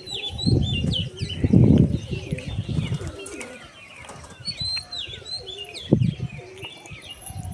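Domestic pigeons' wings flapping in several short bursts as the flock comes out of the loft, loudest about a second and a half in, with pigeons cooing and birds chirping throughout.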